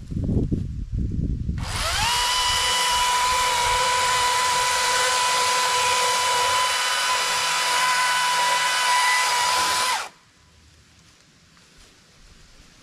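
Cordless power tool's electric motor whining up to speed and running at a steady pitch for about eight seconds, then stopping suddenly. Leaf rustling and handling noises come before it.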